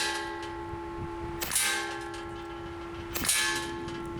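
Two shots from a Hatsan Neutron Star PCP air rifle, about a second and a half in and again near the three-second mark. A steady metallic ringing tone sounds between the shots.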